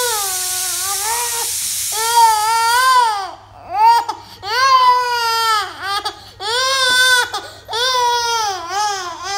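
Baby crying in a run of long wailing sobs, each about a second, with short breaks between them. A steady hiss from the pressure cooker's whistle letting off steam runs under the first cries and stops about three seconds in.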